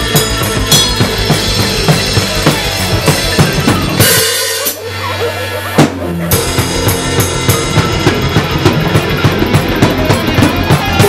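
Acoustic drum kit played fast and busy, with bass drum, snare and cymbals over a backing track that holds steady bass and synth notes. About four seconds in a crash cymbal rings out and the playing thins for a moment. A single heavy hit lands near the six-second mark, and then the dense groove resumes.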